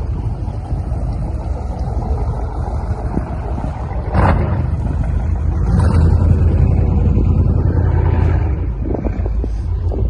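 Low rumble of a motorboat engine running close by, mixed with wind buffeting the microphone; it grows louder about four seconds in.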